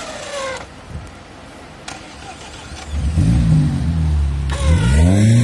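Niva off-roader's engine revving. It is falling away at first and quieter for a couple of seconds, then from about three seconds in it is loud, with the revs surging up and down repeatedly as the car works in the bushes.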